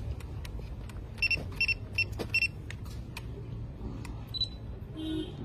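Drone remote controller giving a flight-battery warning: a run of short, high beeps in quick pairs, starting about a second in, over a steady low rumble.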